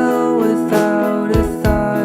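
Background music: a song with guitar and a melodic voice or lead line over a steady beat.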